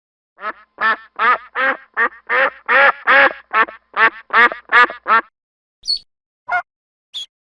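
A duck quacking in a quick, even series of about a dozen quacks, followed by a few separate, shorter, higher-pitched calls near the end.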